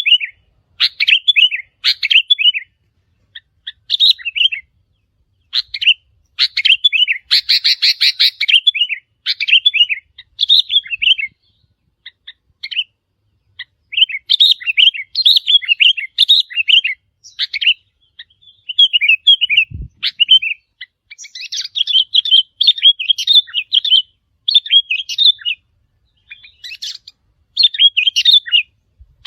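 Sooty-headed bulbuls calling: loud, short bubbly chirping phrases repeated again and again with brief pauses, with one brief low thump about two-thirds of the way in.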